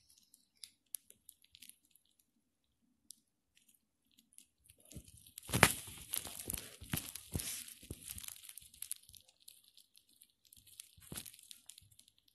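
Crinkling and rustling of packaging handled close to the microphone. It starts about five seconds in, is loudest at first, then dies away into scattered crackles.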